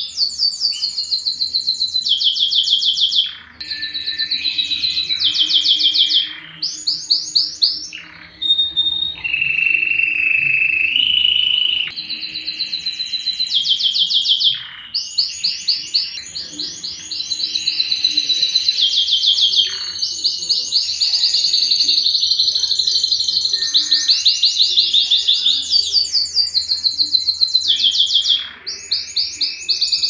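Domestic canary singing a long song of fast, high trills, each phrase a quick run of repeated notes, with a few short breaks between phrases.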